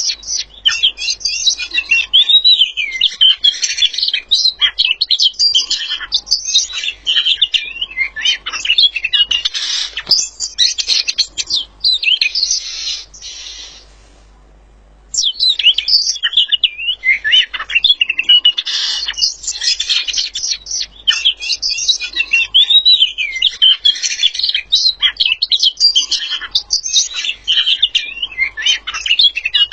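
A songbird singing a fast, continuous warbling song of quick chirps, trills and swooping notes. The song breaks off for about a second near the middle, then resumes.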